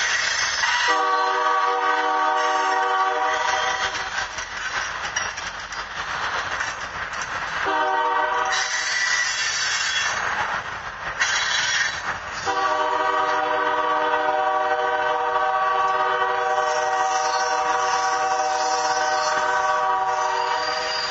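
Freight cars rolling past with steady wheel-and-rail noise, while a diesel locomotive's air horn sounds a long blast, a short one, then a long one held to the end.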